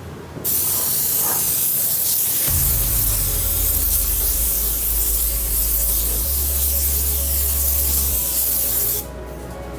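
Paint spray gun hissing steadily as it lays down a white base coat, starting about half a second in and cutting off near the end. Background music with a steady bass line plays underneath.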